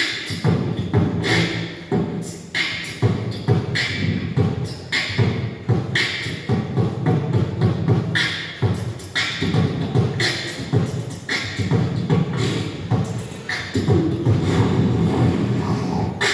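Human beatboxing in a steady "boots and cats" beat: vocal kick-drum sounds with a sharp snare-like hit about once a second.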